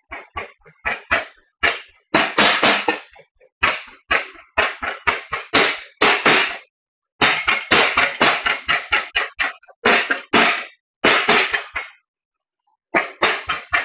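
Heavy meat cleaver chopping cubed beef chuck on a cutting board, mincing it finer for taco meat: quick runs of sharp chops, about three or four a second, broken by short pauses.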